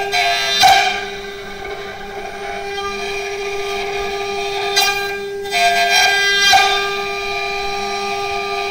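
JCUT 4-axis CNC router spindle whining steadily as its carving bit cuts into a log turning on the rotary axis. The cutting noise swells louder briefly just under a second in, and again for about two seconds around the middle.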